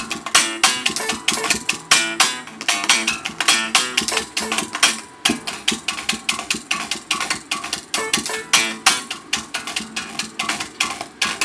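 Live guitar jam: rhythmic, strummed guitar with quick, even percussive strokes, several a second, over a running pattern of notes.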